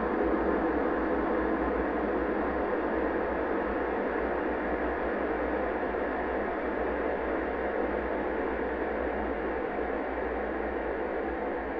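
A fart sound effect stretched a hundredfold with Paulstretch, heard as a steady, smeared drone with a low hum underneath, slowly getting quieter.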